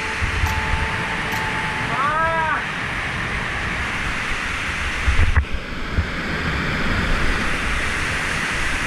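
Steady roar of rushing whitewater. About two seconds in comes a brief rising-then-falling pitched sound, and at about five and a half seconds the sound changes abruptly, as at a cut to another shot of the water.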